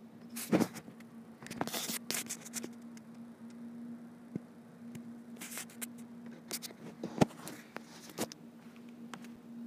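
Rubbing and scraping of the phone being handled close to its microphone, with a few sharp clicks, over a steady low hum.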